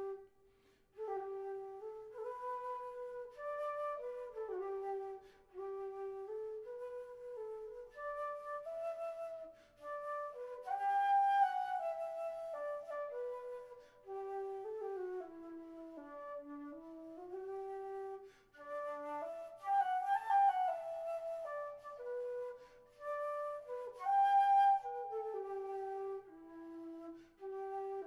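Background instrumental music: a slow melody of held notes moving up and down step by step.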